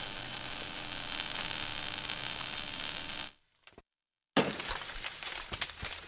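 Intro sound effect of fire and sparks: a steady hissing crackle that cuts off a little over three seconds in. After about a second of silence, a sudden hit comes, followed by scattered crackling.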